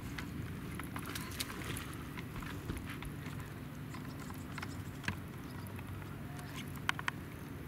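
Small irregular clicks and knocks of water lapping against a boat's hull, with a cluster of sharper knocks near the end, over a low steady rumble.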